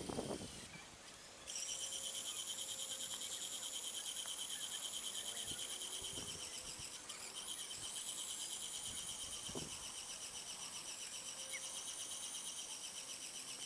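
Insects chirping: a steady, fast, high-pitched pulsing that starts abruptly about a second and a half in, with a few faint low knocks.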